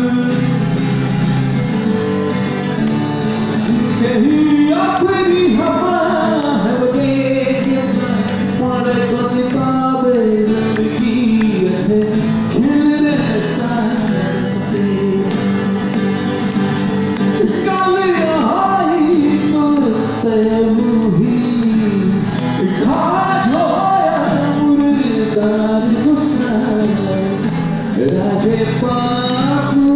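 A man sings a song in Punjabi live into a microphone, accompanying himself on a strummed acoustic guitar.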